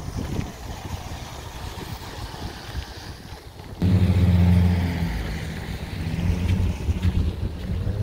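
Street traffic with wind on the microphone; just under four seconds in, a nearby vehicle's engine comes in loud with a steady low hum and keeps running.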